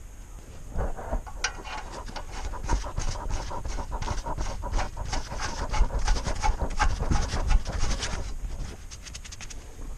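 Socket ratchet clicking rapidly as a nut is run down on the front suspension, starting about a second and a half in and stopping near the end.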